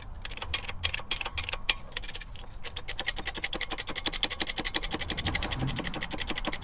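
A press being worked to drive a new bearing into the supercharger nose cone housing, pushing on the bearing's outer race: irregular mechanical clicks, then from about three seconds in a fast, even run of ratcheting clicks, about eight a second.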